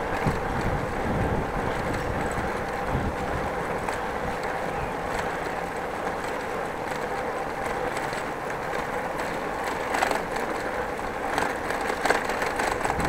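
Bicycle rolling over a brick-paved street: steady tyre rumble on the pavers, with clicks and rattles from the bike, a few sharper ones near the end.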